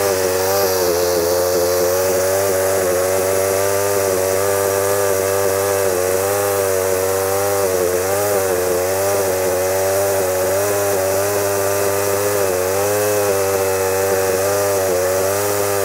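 Poulan Wild Thing two-stroke chainsaw engine running unevenly, its pitch wavering up and down every second or so instead of holding steady. The owner takes this as something still not quite right, perhaps a fuel mixture issue.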